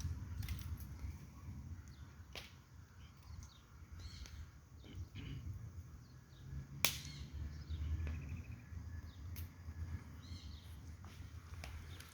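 Wood fire of eucalyptus logs burning, with a few sharp pops from the wood, the loudest about seven seconds in, over a low rumble.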